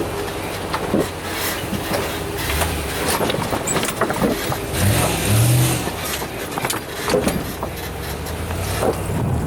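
Off-road vehicle engine running as it crawls a rough trail, revving up briefly about five seconds in, with scattered knocks and rattles throughout.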